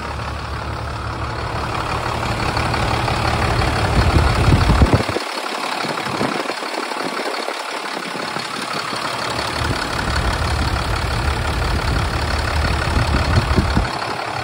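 International DT466 7.6-litre inline-six turbodiesel idling steadily, heard up close in the open engine bay.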